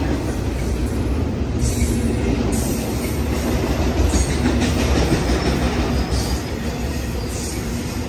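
BNSF double-stack intermodal freight train cars rolling past close by: a steady low rumble of steel wheels on the rails, with a higher hiss from the wheels coming and going a few times.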